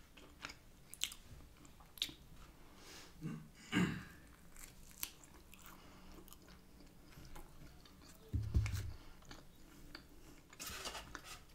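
Close-miked chewing and wet mouth clicks of a person eating takeaway food by hand. There is a louder chewing moment about four seconds in and a low thump about eight seconds in.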